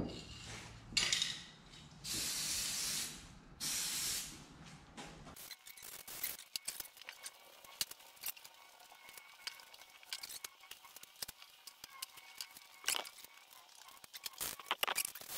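Aerosol can spraying in three hissing bursts over the first four seconds, the longest about a second, most likely adhesive being sprayed for laying carpet. After that come faint rubbing and scraping sounds of carpet being pressed down and trimmed, with a couple of sharper scrapes near the end.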